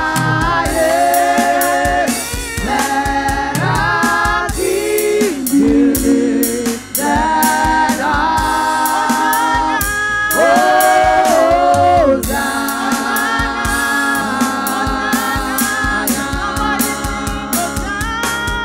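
A women's vocal group singing gospel together into microphones, with long held notes that slide between pitches, over a drum beat.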